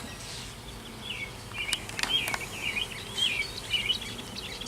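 A small songbird twittering in a run of quick, short chirps, starting about a second in, with a faint hum of honeybees and a couple of sharp clicks.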